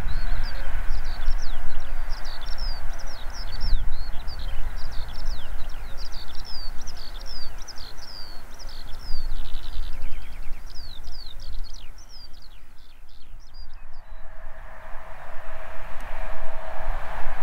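Birds singing busily, a dense run of quick high chirps, over a low rumble. About fourteen seconds in the birdsong cuts off and the rising noise of an approaching train with a steady hum grows toward the end.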